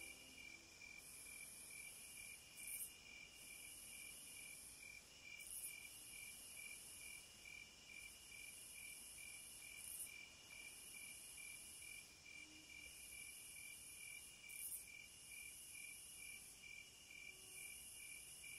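Faint insect chirping, like crickets at night: an even run of quick, high pulses over a thin high-pitched hiss that swells briefly every few seconds.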